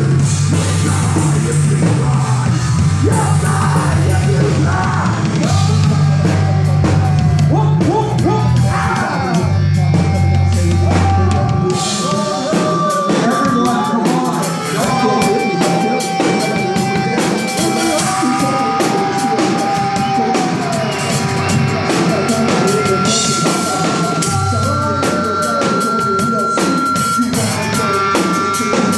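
A live rock band playing horror punk: drum kit, bass guitar and electric guitar, with a woman singing. The heavy low bass line drops out about twelve seconds in, and the second half carries long held high notes over the drums.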